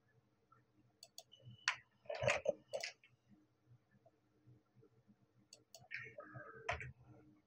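Computer mouse and keyboard clicks: a cluster of sharp clicks about a second to three seconds in, and another near the end.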